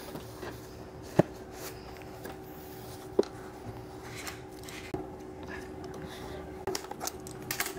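Small cardboard blind box being handled with cotton gloves: light rustling and two sharp knocks as it is lifted out and set down, then a box cutter scratching through its seal near the end. A faint steady hum runs underneath.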